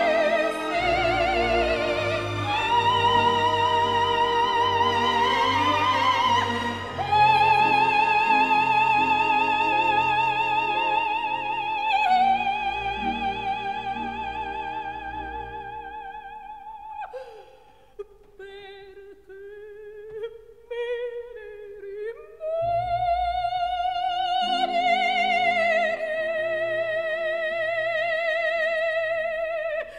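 Operatic singing: a high voice holding long notes with a wide vibrato over instrumental accompaniment. The music drops to a quieter passage of shorter notes a little past halfway, then swells back into long held high notes.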